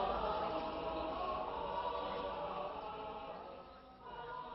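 Chanted singing in long held notes. It fades toward the end, and a new phrase begins about four seconds in.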